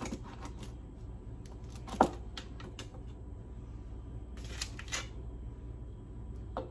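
Scattered light clicks and knocks of a plastic debubbler tool and plastic funnel against glass canning jars, the sharpest about two seconds in and a quick cluster near five seconds, over a low steady hum.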